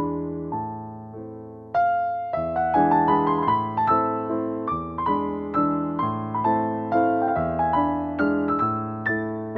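Piano music: a gentle melody of struck, fading notes over held chords, growing louder about two seconds in.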